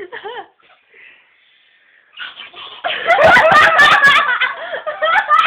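A brief voice, then about two seconds of near silence, then girls break into loud laughter with harsh, raspy bursts from about two seconds in.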